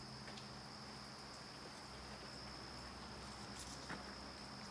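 Insects, crickets by the sound of it, trilling in a steady, even high tone, with a faint click near the end.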